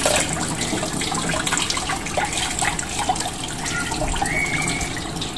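Tap water from a garden hose running steadily through a car's cooling system, flushing the old rusty coolant out of the radiator and engine block.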